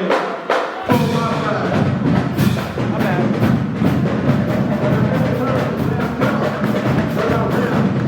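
Dance music with heavy percussion, loud and steady. The bass and full beat come in about a second in, after a few sharp opening hits.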